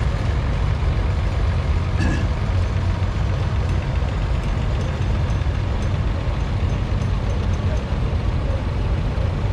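Antique tractor engines running: a steady low rumble, with a single short click about two seconds in.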